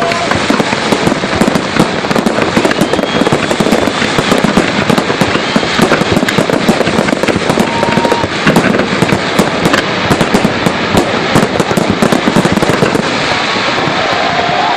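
Large fireworks display: a dense, unbroken run of cracks and bangs from many shells going off at once.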